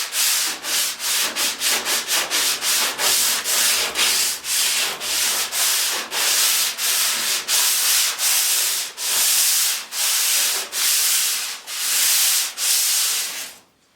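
Hand sanding body filler (Bondo) on a truck fender: back-and-forth scraping strokes at about two a second, stopping just before the end.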